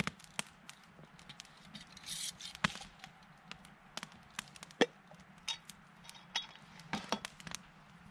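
Campfire crackling: wood popping and snapping at irregular moments, with a short hiss about two seconds in.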